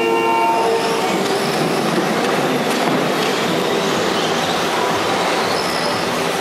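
Radio-controlled rally cars racing on a dirt track: a steady, loud mix of whining motors and tyres scrabbling on loose dirt, with a brief high-pitched whine near the start.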